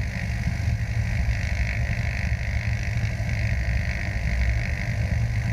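Cessna 172's piston engine and propeller running steadily at low power, a deep even drone with a higher buzz above it, heard from a camera mounted on the wing strut.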